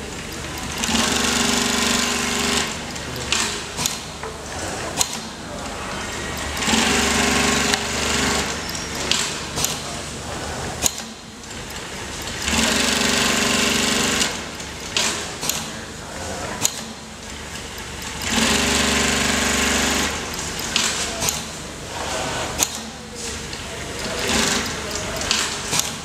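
Automatic pattern sewing machine stitching hook-and-loop strips onto leather: bursts of fast stitching about two seconds long, four times, roughly every six seconds. Between the bursts come sharp clicks and quieter mechanical moves.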